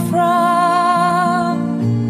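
Slow, tender song: one long held sung note over soft, low accompaniment.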